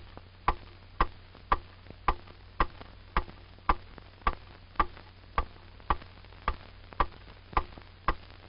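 Evenly spaced sharp ticks, a little under two a second, like a metronome or clock, over a low steady hum.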